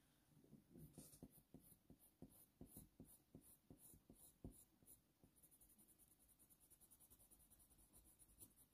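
Faint scratching of a Faber-Castell Polychromos colour pencil on hot-press watercolour paper: short shading strokes, a few a second, laying a light base layer. The strokes fade out about halfway through.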